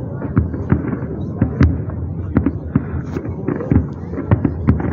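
Aerial fireworks display: a rapid, irregular barrage of shell bursts, about three or four sharp bangs a second over a continuous rumble.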